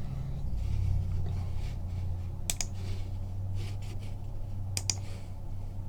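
A few light, sharp clicks and taps at a desk, spaced irregularly, over a steady low hum.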